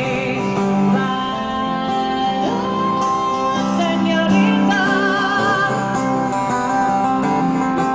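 Acoustic guitar strummed live with a woman singing over it, holding long wavering notes about halfway through.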